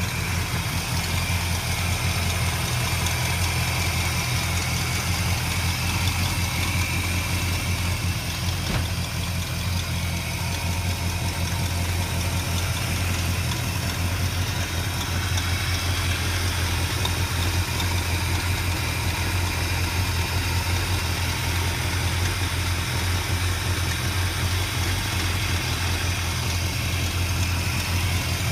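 1957 Chevrolet Bel Air's V8 engine idling steadily, heard close up from over the open hood.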